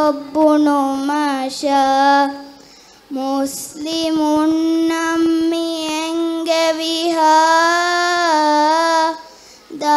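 A girl singing solo into a microphone: a slow melody in short phrases, then one long held note with a slight waver from about four seconds in until near the end.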